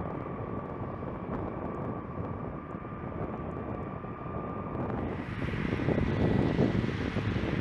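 Four T56 turboprop engines of a ski-equipped LC-130 Hercules running as it moves over snow: a steady engine noise with a thin high whine. About five seconds in, the sound grows louder and the whine is pitched higher.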